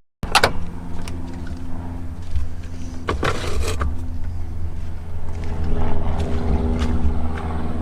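A motor running steadily with a low hum, with a short noisy clatter about three seconds in.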